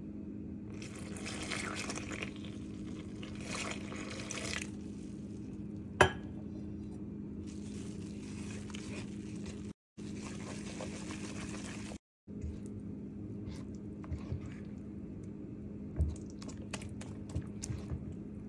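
A wire whisk mixing whole-wheat flour in a bowl as water is poured in, with rustling and splashing in the first few seconds and one sharp clink of the whisk against the bowl about six seconds in. Near the end a spatula stirs the thick batter with small clicks and scrapes, over a steady low hum.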